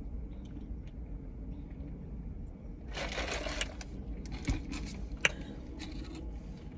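Steady low rumble inside a car, with handling noises of food and drink: a brief rustle about three seconds in, then two light knocks.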